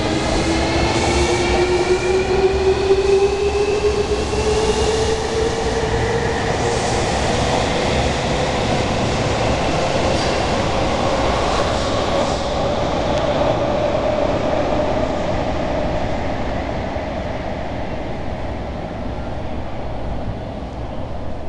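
305 series electric train accelerating out of an underground station: the whine of its SiC VVVF inverter and traction motors rises steadily in pitch over the rumble of the wheels, with scattered clicks from the rails. The sound eases off near the end as the train draws away into the tunnel.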